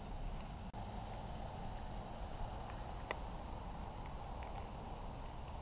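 Steady, high-pitched chorus of summer insects, with a low rumble underneath and a few faint clicks.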